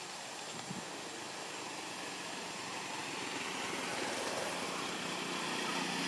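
A small engine running and growing steadily louder, over a steady outdoor hiss.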